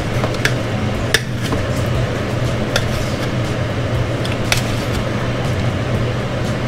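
A chef's knife slicing smoked pork tenderloin, its blade tapping sharply on a metal pan about five times, a second or so apart, over a steady low hum.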